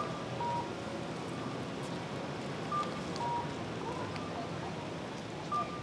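Pedestrian crossing audible signal: a two-note electronic chirp, the second note lower, repeating about every three seconds over steady street noise.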